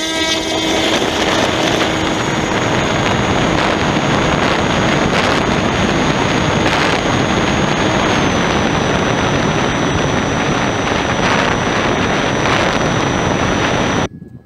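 Sky Hunter RC plane's electric motor and propeller running at full throttle through takeoff and climb-out, heard from a camera mounted on the plane and heavily mixed with wind rush over the microphone. It cuts off abruptly near the end.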